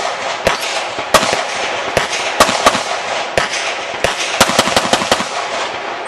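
Rapid pistol fire during a USPSA practical shooting course of fire: about twenty sharp shots, many in quick pairs and close strings, with echo ringing between them.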